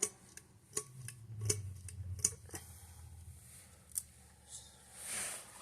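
A series of sharp, separate clicks and light metallic clatter, about six in four seconds, as ceiling fan hardware around the pull chain and switch housing is handled, ending in a brief rustle.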